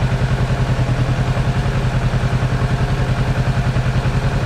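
Kawasaki Z650's 650 cc two-cylinder engine idling with an even, rapid pulse.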